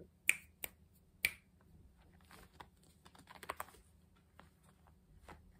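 Three sharp clicks within the first second and a half, then a quick run of softer ticks about three and a half seconds in.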